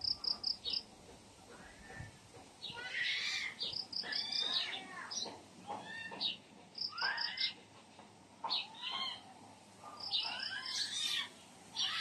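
Birds calling and singing in trees: a quick run of four or five high, even notes repeats about every three seconds, among varied chirps and warbling phrases.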